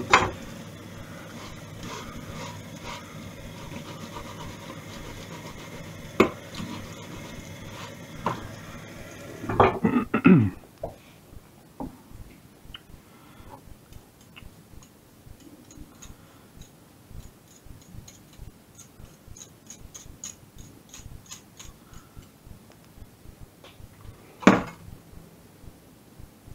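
Kitchen crockery and utensils being handled: a few knocks over a steady background noise, a burst of clatter about ten seconds in, then quieter light clinks and scrapes, and one sharp knock near the end.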